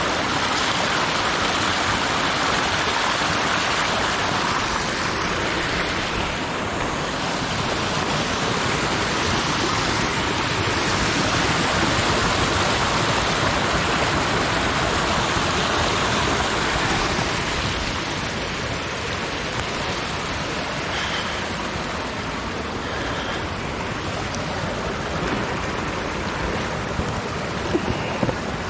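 Steady rush of running water at the creek water system, easing a little from about 18 seconds in.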